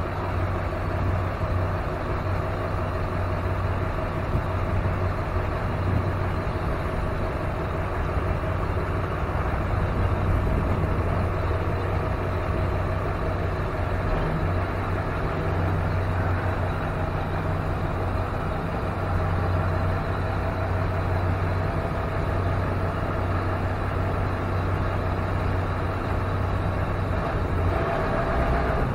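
Hotshot truck running, a steady low drone that holds without change.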